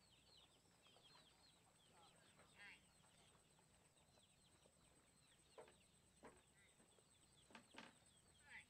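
Faint chirping of many small birds over open marshland, with a short warbled phrase or two and a few sharp clicks in the second half.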